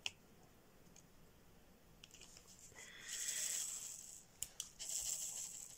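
Rustling of a diamond-painting canvas's plastic cover film as it is lifted and shifted on the light pad, in two stretches, with a few light clicks in between.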